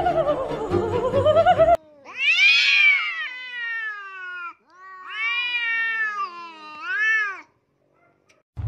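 Domestic cats yowling in a face-off: two long drawn-out yowls, the first rising then falling in pitch, the second wavering up and down. This is the threatening caterwaul of cats about to fight. The yowling follows a short stretch of background music at the start.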